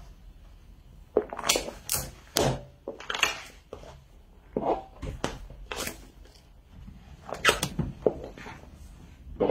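Stiletto high heels stepping on and crushing a white hollow object: a string of sharp crunches and cracks, about a dozen, irregularly spaced.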